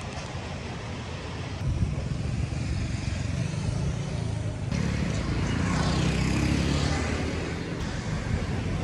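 Street traffic: engines of passing cars and motor scooters, with one vehicle passing close and loudest a little past the middle.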